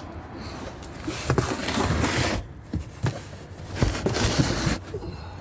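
An oil drain pan being dragged and shifted into place. There are two stretches of rough scraping, about a second in and again near four seconds, with a few knocks between them.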